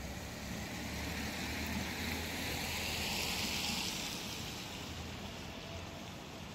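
Street traffic on a rain-wet road: tyre hiss from a passing vehicle swells to a peak about three seconds in and fades, over a low traffic rumble.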